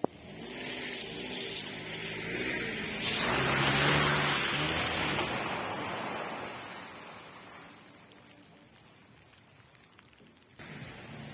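A car driving past on a wet road: tyre hiss swells to a peak about four seconds in, then fades away, over the patter of rain.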